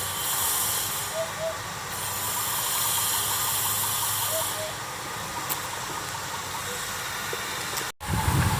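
Steady outdoor hiss with a faint two-note hoot from a common hoopoe, heard twice a few seconds apart. Near the end the sound cuts out briefly and a louder low rumble follows.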